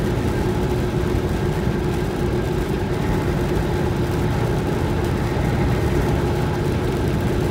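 Steady in-cab drone of a vehicle cruising on a wet highway: a constant engine hum under tyre and road noise, with no change in pace.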